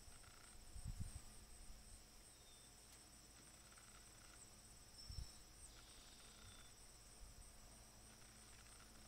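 Near silence with faint, steady insect trilling high up, and a few soft low thumps about a second in and again about five seconds in.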